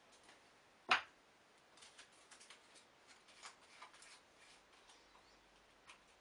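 One sharp knock about a second in, the plastic glue bottle set down on the wooden workbench, followed by a run of light clicks and taps as thin wood veneers are laid and pressed into a small stacking jig.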